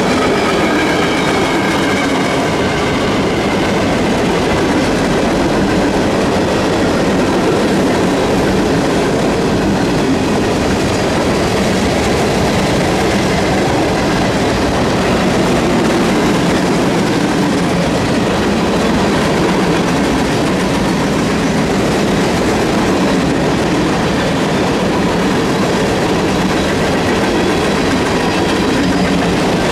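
CSX freight train's cars rolling past at speed: a steady loud rumble of steel wheels on rail. Faint high ringing tones fade out in the first few seconds.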